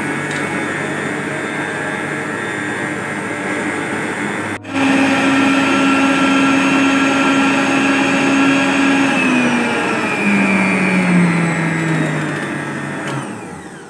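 Electric stand mixer running, its wire whisk beating thin cake batter in a steel bowl. After a short break about a third of the way in, it runs louder with a steady whine. The whine drops in pitch in steps, and the mixer winds down to a stop near the end.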